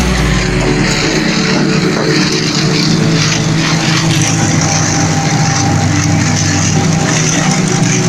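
Tractor engine and a ZMAJ 214 pull-type corn picker running steadily while picking corn, a constant mechanical drone.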